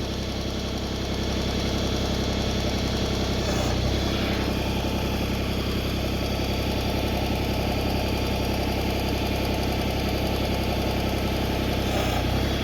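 Tractor engine running steadily while it powers the backhoe's hydraulics to raise the outriggers; it runs a little louder from about a second in.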